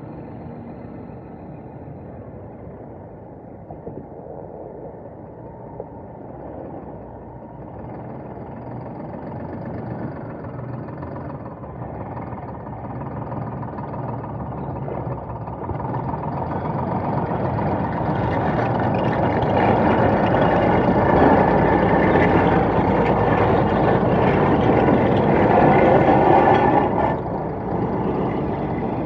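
Scania R480 hooklift truck's six-cylinder diesel engine running as the truck drives. It grows steadily louder as the truck comes close, is loudest as it passes, and drops off sharply near the end.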